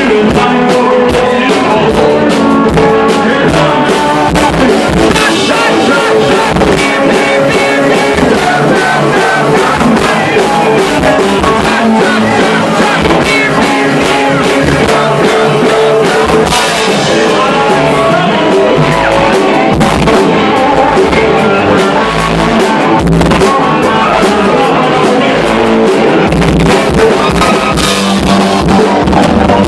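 Live rock band playing loud: electric guitar, drum kit and a singer, heard close to the stage.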